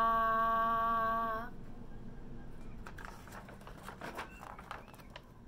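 A woman's voice holding a long, steady 'aaah' on one pitch, the French letter sound 'a', which stops about a second and a half in. Then faint rustling and light taps of a picture book being handled as its page is turned.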